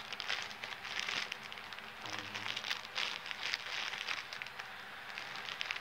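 Plastic shipping bag crinkling and rustling in a steady, irregular patter as it is handled and worked open.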